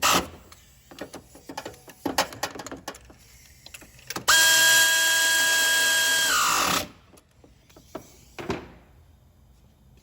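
A small power tool's motor runs steadily for about two and a half seconds, then winds down with falling pitch. Before it, light clicks and clanks of tools being handled.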